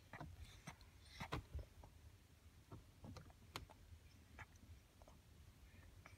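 Quiet low rumble of a car interior, with a few faint, short clicks and soft sounds scattered through it.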